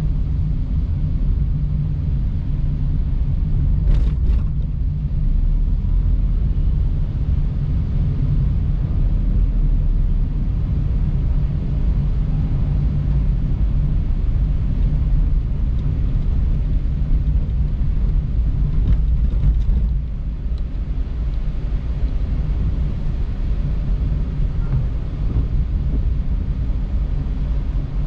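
Steady low rumble of a car driving, engine and road noise, with a brief sharp click about four seconds in.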